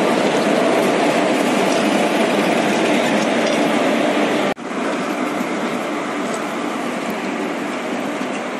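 Steady outdoor crowd noise: many people walking on railway ballast, with indistinct voices mixed in. It cuts out for an instant about four and a half seconds in and comes back a little quieter.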